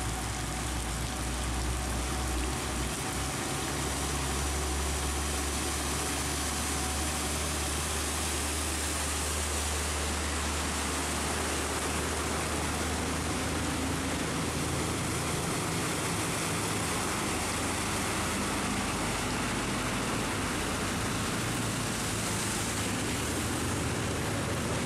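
Heavy rain hissing steadily, with the low drone of a road vehicle's engine through much of it, strongest in the first half.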